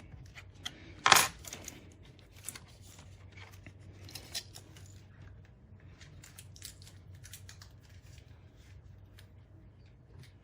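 Plastic clicks and ticks from a hard-drive enclosure's snap-fit case being pried apart, with one loud sharp snap about a second in and smaller scattered clicks after it.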